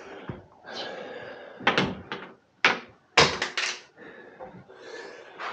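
Knocks and scraping of an electric water heater tank being handled against the wall while it is lifted onto its mounting, with a few loud bumps between about one and a half and three and a half seconds in.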